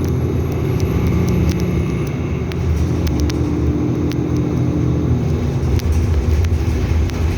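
Nova Bus LFS city bus running, a steady low engine drone that shifts slightly in pitch around the middle, with scattered sharp clicks and rattles.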